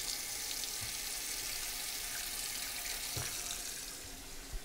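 Kitchen faucet running hot water into a pot at the sink to make the pasta water. The flow is shut off near the end, with a light knock.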